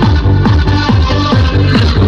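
Loud electronic dance music played through a car audio system, its heavy bass driven by a Kicker Comp C12 12-inch subwoofer. The beat lands about three times a second, and each bass hit drops in pitch.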